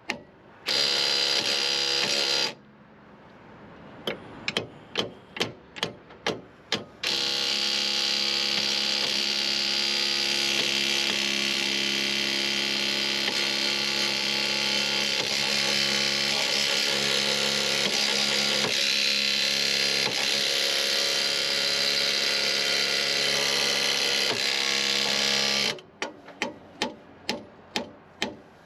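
Cordless impact wrench hammering steadily as it drives the screw of a ball joint press, forcing a new ball joint up into a lower control arm. There is a short burst about a second in, then one long continuous run of nearly twenty seconds. Before and after the long run come rows of sharp taps, a few per second.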